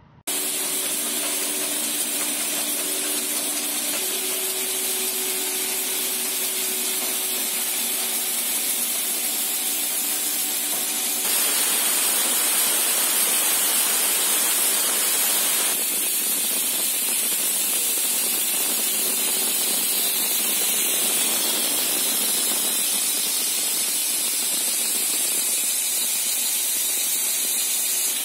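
Compression cap molding machine line running: a steady hiss with a low hum of a few steady tones underneath at first. The sound shifts abruptly about 11 and 16 seconds in.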